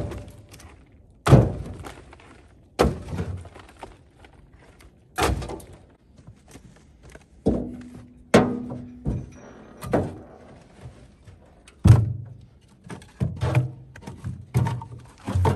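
Split firewood dropped one piece at a time into a metal dump cart, each landing with a wooden thunk, about a dozen at irregular intervals and quicker near the end. One or two hits set the metal cart bed ringing briefly.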